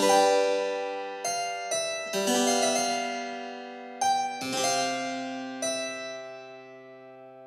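Background music: a keyboard instrument playing a slow run of about seven chords, each struck sharply and left to ring and fade.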